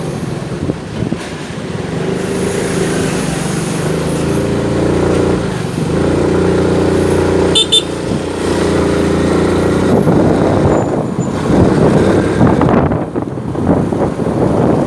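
Motorcycle engine running under way, its pitch rising twice as it accelerates through the gears, over street traffic noise. A brief high beep comes about seven and a half seconds in.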